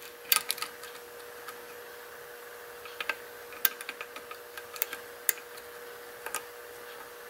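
A lock pick ticking and clicking against the pins inside a six-pin pin-tumbler lock during single-pin picking: a dozen or so small, sharp clicks at irregular intervals, over a faint steady hum.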